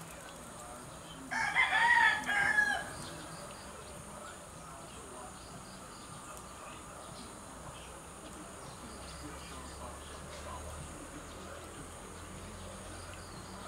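A rooster crowing once, about a second in, a single call of about a second and a half over faint outdoor background.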